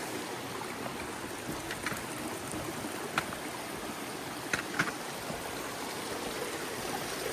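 Steady rushing of river water, with a few short sharp clicks a couple of seconds in and again around the middle.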